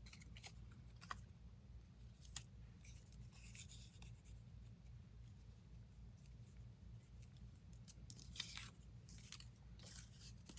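Near silence: faint rustles and light taps of paper cutouts being handled and laid on a cutting mat, over a low steady hum.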